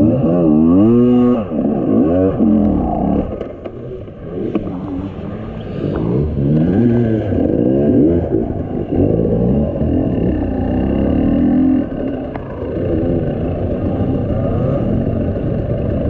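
Enduro motorcycle engine heard from on the bike, its revs rising and falling over and over as the throttle is worked, easing off for a moment about four seconds in, with a few light knocks.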